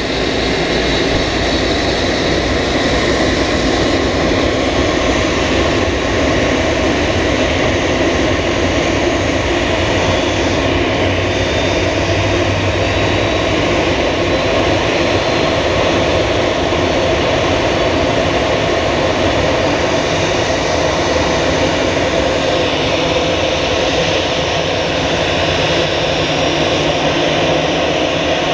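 Steady, loud jet-engine noise from an Airbus A320 during pushback, heard from the open cab of the tug pushing it.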